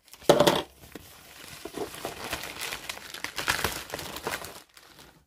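Plastic poly mailer crinkling and rustling as it is handled, with a loud rustle about half a second in and irregular crackling after it.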